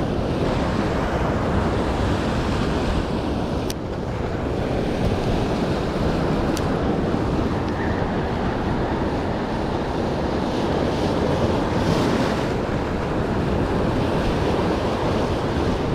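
Surf washing over rocks, with wind buffeting the microphone in a steady low rumble.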